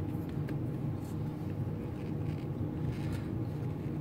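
A small screwdriver and a metal hard-drive caddy clicking faintly a few times as the caddy screws are worked, over a steady low background hum.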